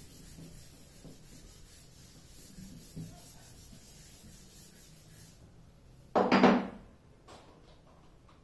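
Faint rubbing of a chalk duster wiping a chalkboard, then about six seconds in a single loud, short scrape lasting under a second.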